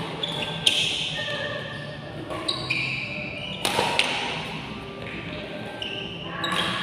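Badminton rackets striking a shuttlecock in a rally, a few sharp hits about three seconds apart with a quick pair in the middle, echoing in a large hall, with short high squeaks of court shoes between them.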